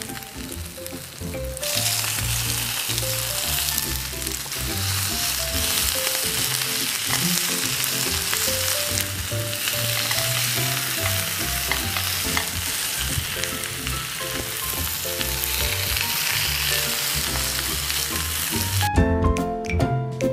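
Large tiger prawns sizzling in a little oil in a hot nonstick grill pan, a dense steady frying hiss. It grows louder about two seconds in and cuts off suddenly near the end.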